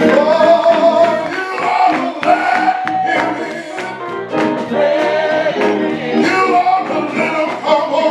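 Gospel music: a voice sings long, sliding notes over a church band with a steady beat.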